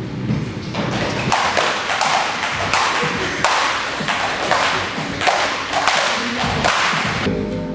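Several skipping ropes slapping the studio floor as dancers jump, a quick uneven run of sharp slaps and landings, about two to three a second. Music with held notes plays at the start and comes back near the end.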